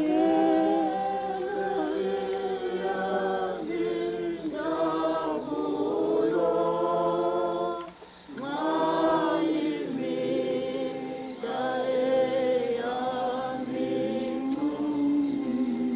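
A choir of many voices sings a hymn unaccompanied, in long held phrases with short pauses between them. One pause, about halfway through, is a little longer.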